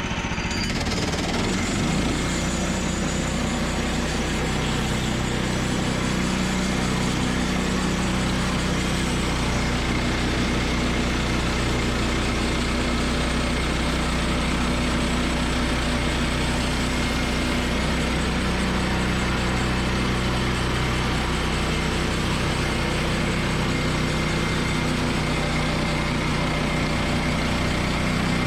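Woodland Mills bandsaw sawmill's gasoline engine running steadily at an even pitch, with a deeper hum joining about two seconds in.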